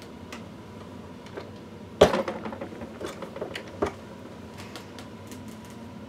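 Metal clicks and taps from a reloading press and a brass cartridge being handled after crimping: one sharp click about two seconds in, then several lighter clicks with a stronger one near the four-second mark.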